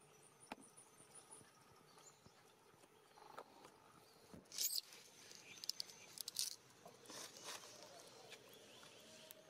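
Dry leaves crackling and rustling under a baby macaque as it crawls over them, in a few short bursts around the middle, over a faint outdoor background.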